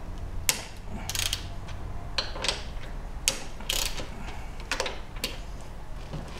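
Socket ratchet clicking in short repeated bursts as it loosens the bolts on the reinforcing bars of a Toyota Prius hybrid battery pack, over a low steady hum.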